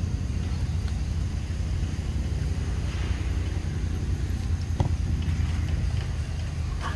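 Wind rumbling on the microphone outdoors: a steady low rumble with a few faint clicks and one sharper tick nearly five seconds in.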